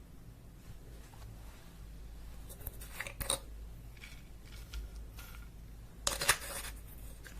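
Slime being squished and mixed by hand with makeup worked into it, giving crackling clicks and pops in two short clusters, about three seconds in and again about six seconds in.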